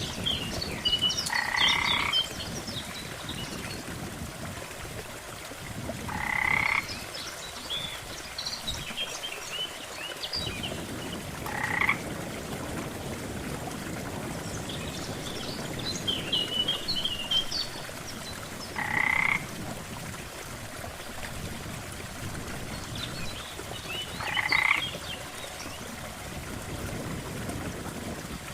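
Frogs croaking at a lake: a loud, pulsed croak about every five seconds, five in all, with scattered higher chirping calls between them.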